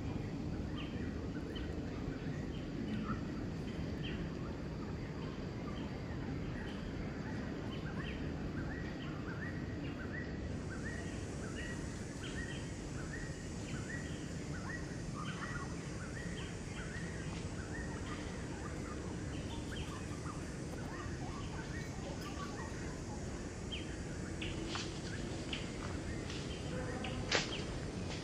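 Outdoor ambience: a steady hiss of background noise with a bird chirping over and over, short calls about two a second. A couple of sharp clicks near the end.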